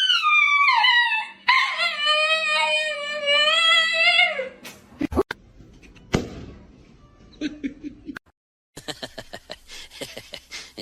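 A dog howling: two long howls, the first high and falling away, the second lower and held for about three seconds before dropping off. A couple of sharp knocks follow, then a quick run of clicks near the end.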